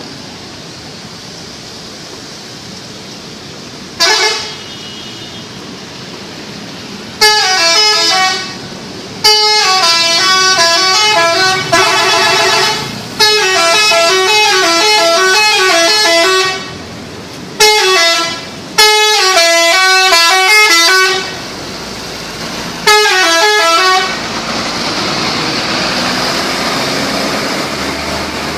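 Telolet horn of a Shantika intercity bus: a multi-tone musical air horn playing quick tune phrases. It gives one short blast about four seconds in, then a string of loud bursts of rapidly stepping notes, some lasting two to three seconds. Steady traffic noise fills the gaps and continues after the last burst.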